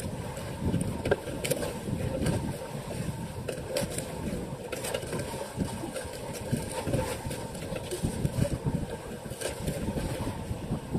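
A small outrigger fishing boat at sea: its engine running steadily under a rush of wind and water, with a few sharp knocks or splashes.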